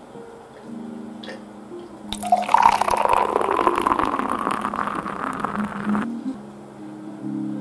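Beer poured from a can into a stainless steel mug, a fizzing, splashing pour lasting about four seconds that starts about two seconds in and stops sharply.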